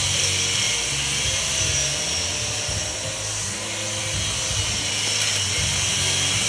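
A power tool cutting into a lawn mower engine's metal: a steady, high-pitched hissing grind over an uneven low rumble.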